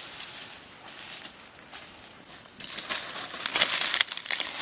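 Bare feet stepping through dry leaf litter and undergrowth: rustling and crackling, getting denser and louder about two and a half seconds in.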